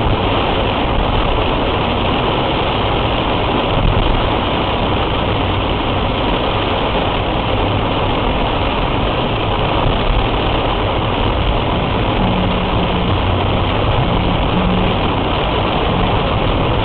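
Heavy rain falling steadily on a car, a dense unbroken hiss, with the car's engine running low underneath, heard from the dashcam inside the car.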